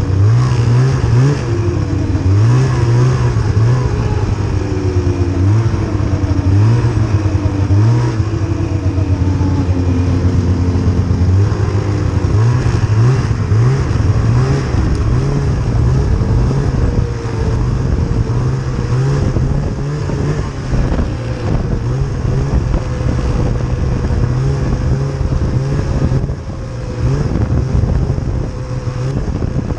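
Snowmobile engine running under way, its pitch rising and falling as the throttle is opened and eased off.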